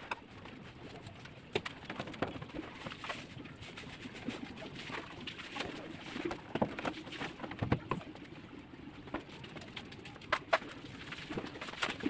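Pigeons cooing steadily in the background, with scattered sharp clicks and knocks from parts of a washing machine being handled.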